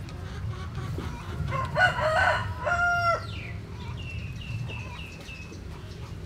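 A rooster crowing once, a drawn-out call of about two seconds that ends in a falling note, followed by a run of five or six short high chirps.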